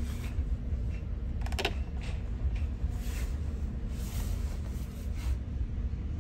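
Passenger train running slowly into a station, heard from inside the carriage as a steady low rumble, with a brief high squeal about a second and a half in.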